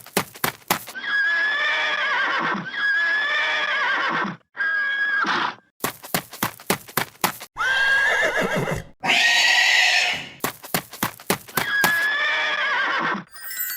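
Horse whinnying several times, each call a wavering high neigh of about a second, alternating with runs of clip-clopping hoofbeats.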